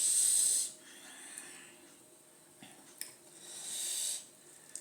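Two sharp hissing breaths, like air sucked in through the teeth against the burn of very spicy noodles: a short loud one at the start and a longer one about three seconds in, after a small click.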